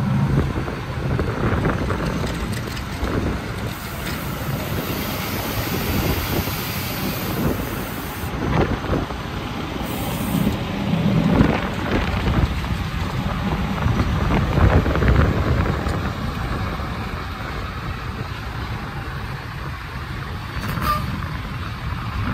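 Heavy truck running, a rough low rumble that swells and eases, with brief hissing noises here and there.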